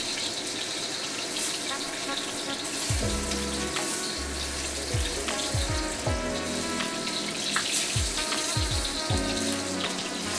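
Pork meatballs sizzling steadily as they sear in oil in a hot carbon-steel wok. About three seconds in, a lo-fi hip-hop beat with deep, falling bass notes comes in over the sizzle.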